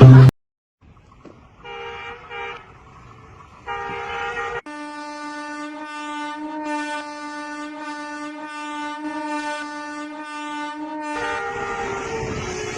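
A horn sounding a chord of several steady tones, like a train horn: two short blasts, then one long blast held for about six seconds. Near the end it gives way to a noisier rumbling sound.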